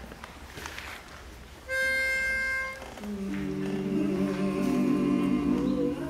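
A pitch pipe sounds one steady reed note for about a second, giving the starting pitch. Then the barbershop quartet's voices come in one after another, humming their starting notes into a sustained four-part chord.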